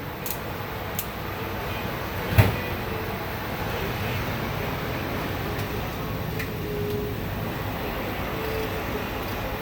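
Semi truck's diesel engine idling steadily, with one sharp knock about two and a half seconds in.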